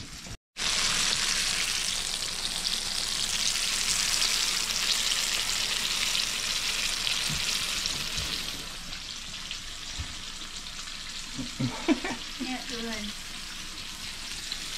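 Coated crappie and perch fillets shallow-frying in vegetable oil in a small skillet: a steady sizzle that eases a little about halfway through.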